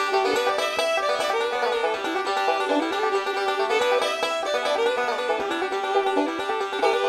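Background music of quick plucked-string picking in a banjo-like, bluegrass style.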